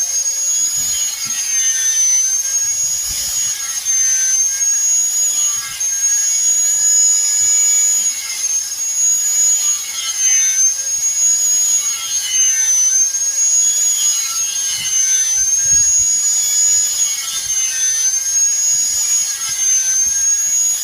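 Small high-speed electric power tool running steadily, a high-pitched whine that sags slightly in pitch every two to three seconds.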